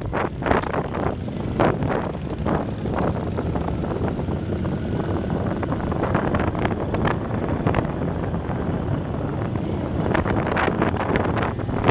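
Motorcycle engine running at low road speed, with wind buffeting the microphone in uneven gusts.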